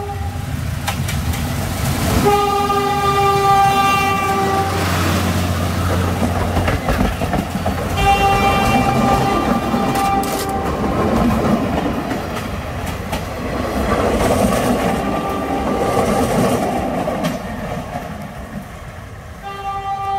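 Philippine National Railways train passing close by, its wheels rumbling and clattering over the rails. Its horn sounds three times in steady single-pitch blasts: about two seconds in for over two seconds, about eight seconds in for about two seconds, and again just before the end.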